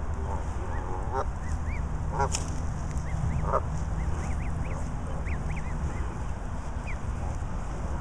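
Goslings peeping: a steady run of short, high chirps, several a second, with three louder, lower goose calls about one, two and three and a half seconds in.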